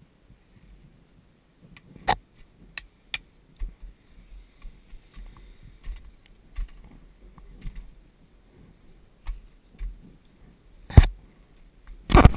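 Scattered clicks and knocks of handling noise on an action camera worn by a skier standing at a race start, with low thumps at the microphone. One loud knock comes about eleven seconds in and a cluster of loud knocks near the end, as the lens is covered.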